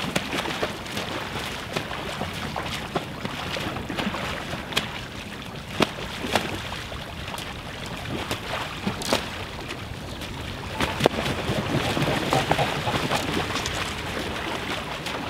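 Mute swans fighting in the water: continuous splashing and wings beating on the surface, with sharp slaps now and then and a louder flurry about three-quarters of the way through.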